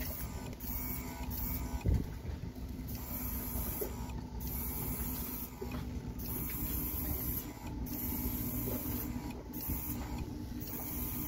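Small battery-powered airbrush compressor running with a steady hum, while a trigger airbrush hisses as it sprays primer, its high hiss coming and going. A single short thump about two seconds in.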